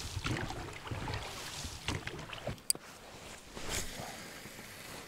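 Oars working an inflatable boat through calm water: soft, irregular splashes and swishes of the strokes, with one sharp knock a little past halfway.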